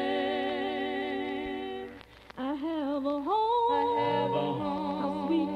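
Unaccompanied vocal group singing a hymn in close harmony: a chord held to the end of the refrain, a brief breath about two seconds in, then the voices begin the next verse.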